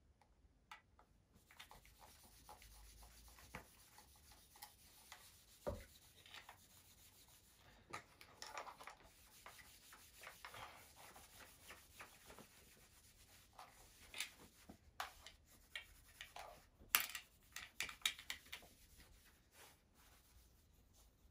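A cloth rubbing over a shotgun's wooden stock and metal receiver: faint, irregular wiping strokes, with a few light knocks and clicks as the gun is handled.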